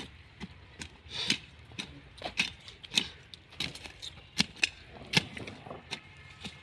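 A rambha, a short-handled hand digging tool, chopping and scraping into dry, stony soil around a tree's roots: a run of sharp, irregular strikes, about two a second, with the metal blade clinking on pebbles.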